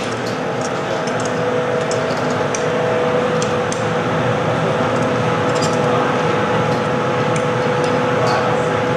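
Steady roar of a glassblowing studio's furnace and glory hole, with a steady hum and a few light clinks.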